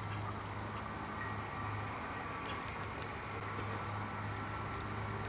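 Steady low hum at one pitch over a faint even hiss.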